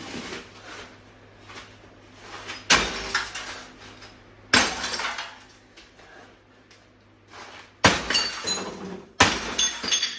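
Sledgehammer blows smashing a 1988 GE 26CT622 CRT television: four heavy hits, the last two closest together, each followed by the crunch and clinking of broken picture-tube glass.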